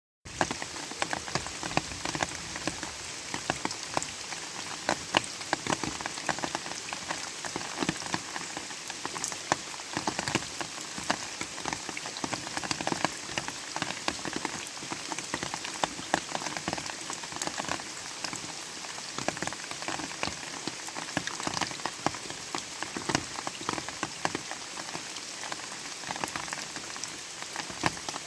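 Light rain falling steadily, a dense patter of many individual drops hitting a surface.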